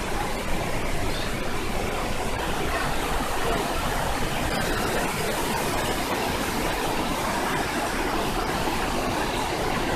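Rushing white water of a river's rapids pouring over boulders, a steady, loud, even rush with no break.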